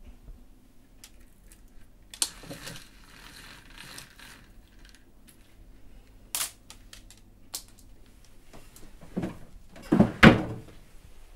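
Handling sounds in a quiet small room: a roller blind's bead chain rattling and clicking as it is pulled, with a sharp click about six seconds in, then two louder thumps and a scrape near the end as a suitcase is handled.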